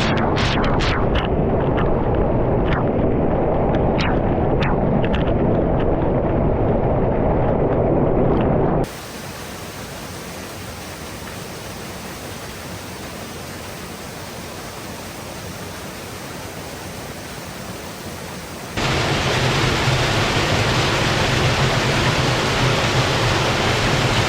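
River water rushing steadily in a loud, even roar of noise, a river swollen and running fast. The sound cuts abruptly to a quieter, thinner rush about nine seconds in, then back to the loud, deeper rush about ten seconds later.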